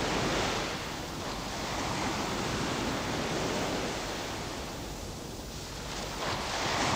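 Ocean surf breaking on a rocky shore: a steady rushing wash that swells and ebbs, easing off about five seconds in and building again near the end.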